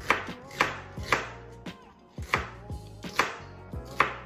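Kitchen knife dicing an onion on a plastic cutting board: sharp chops about two a second, with a short pause about two seconds in.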